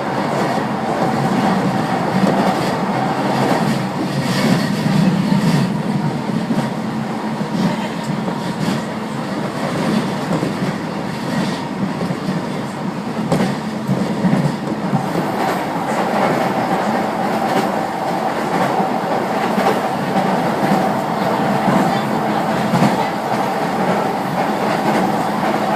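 JR East Keiyo Line electric commuter train running at speed, heard from inside the passenger car: steady rumble of wheels on the track with a steady motor hum.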